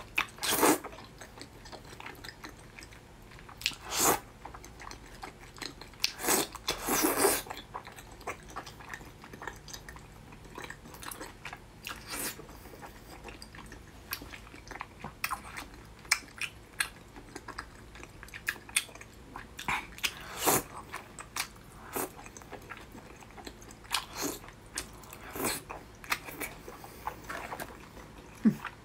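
Close-up mouth sounds of a person eating wide starch noodles in chili oil: slurping the noodles in and chewing them, with wet smacks and clicks scattered throughout and a few louder slurps.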